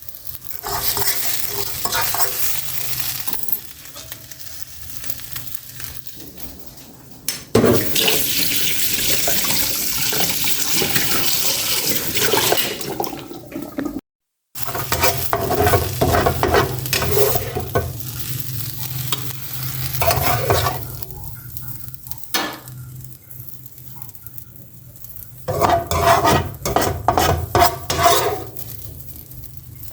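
Food sizzling in a hot frying pan, with a spatula scraping and tapping against the pan in quick clusters. The sound cuts out for a moment about halfway through.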